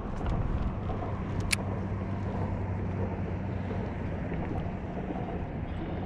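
A steady low motor drone, with one sharp click about a second and a half in.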